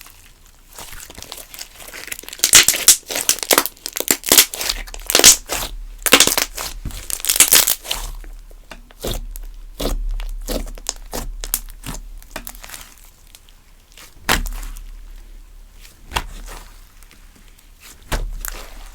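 Slime being squeezed, stretched and folded by hand, giving dense wet crackling and popping. The crackling is thickest in the first half, then thins to scattered single pops with a few sharper ones near the end.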